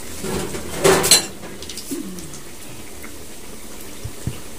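A short clatter of kitchen utensils about a second in, with sharp clicks, then a faint tick near the end.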